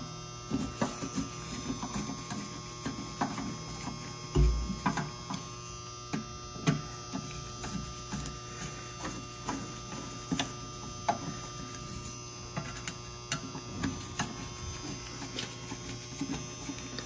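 Hand screwdriver driving the screws of a galvanized steel control panel cover: a run of small metal clicks and scrapes, with one dull knock about four seconds in. A steady electrical hum sits underneath.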